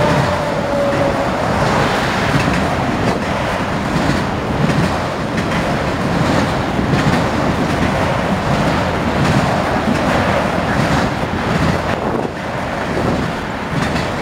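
Freight train of autorack cars rolling past, a steady rumble with wheels clacking over the rail joints. A falling tone near the start comes with a road truck passing.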